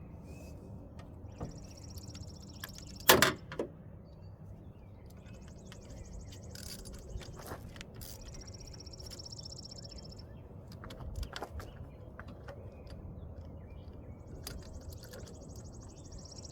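Hand tools clinking on metal while a car battery's hold-down bolt is worked, with one sharp metal clank about three seconds in and lighter clicks through the rest. A high, steady buzzing comes and goes in long stretches.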